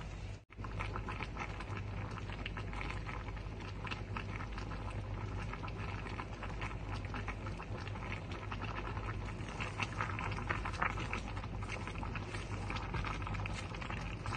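Broth simmering in a pan of pork and vegetables, a steady crackling bubble over a low hum, with a sudden brief gap about half a second in.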